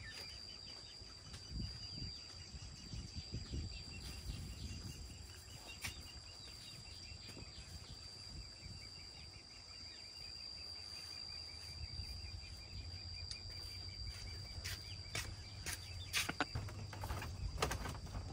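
Insects calling: one gives a steady high-pitched trill and another chirps in fast, even pulses. Under them is a low uneven rumble, with a few scattered clicks and knocks, more of them near the end.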